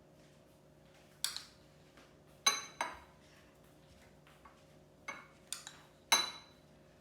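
Metal spoon clinking against a bowl in a series of separate sharp taps, each ringing briefly. The strongest come about two and a half and six seconds in.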